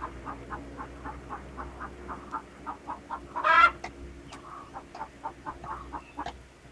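A hen clucking in a steady run of short clucks, about four a second, with one loud squawk about three and a half seconds in. A couple of sharp knocks of a hatchet splitting firewood come in the second half.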